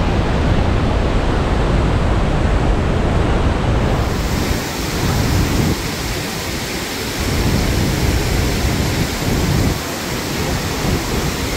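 Iguazu Falls: a loud, steady rush of falling water that brightens and hisses more about four seconds in.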